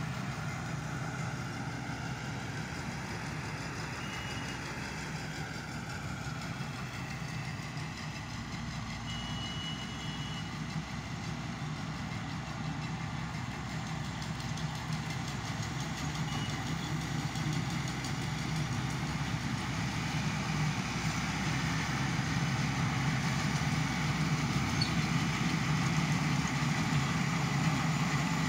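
Farm tractor engine running steadily while pulling and driving a round baler, growing louder over the last dozen seconds as it comes nearer.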